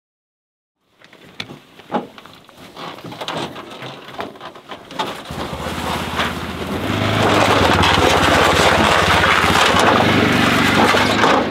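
Knocks and clatter of gear being handled in a pickup's bed, then from about five seconds in an ATV engine running, with a rushing noise over it, growing louder and holding steady from about seven seconds as the quad is driven onto a trailer.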